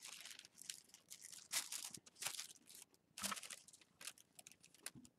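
Faint, irregular crinkling and rustling of a tetrahedral kite's tissue-paper skins as hands handle the kite and tie string at a corner.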